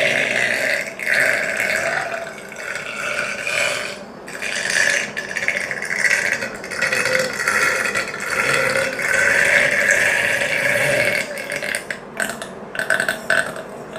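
A girl burping: long, drawn-out belches lasting several seconds each, with brief breaks between them.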